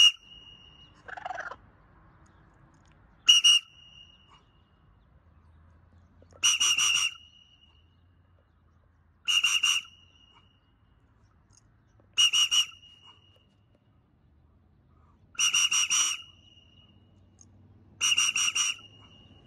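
Short, sharp blasts on a handheld whistle, all at the same high pitch and repeated about every three seconds, used as a recall signal to call a free-flying pet bird home.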